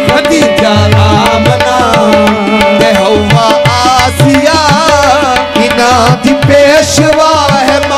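Qawwali-style devotional music: harmoniums hold the melody over a tabla beat, with a voice sliding through wordless ornamented runs between the sung lines.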